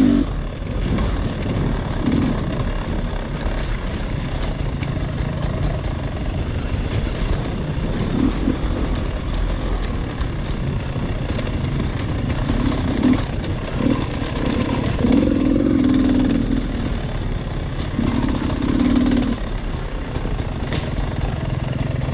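Dirt bike engine running as the bike is ridden along a trail, its note swelling louder in several short spells of throttle, with scattered clatter over the steady drone.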